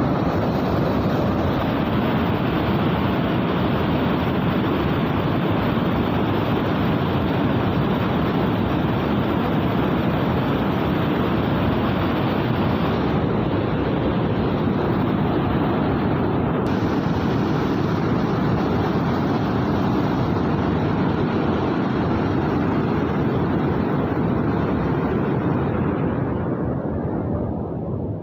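Steady, loud rush of fast-flowing floodwater, its tone shifting slightly about halfway through and fading out near the end.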